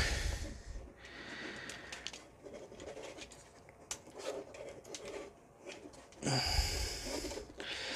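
Plastic parts of a Transmetal 2 Megatron action figure being handled and worked apart by hand: faint scratching and rubbing with scattered small clicks. A louder rush of noise comes about six seconds in and lasts a little over a second.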